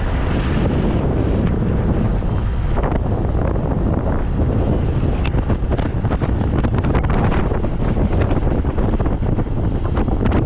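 Heavy wind buffeting the microphone of a camera mounted on the outside of a moving car, a steady loud rush with a deep low rumble and frequent brief gusts.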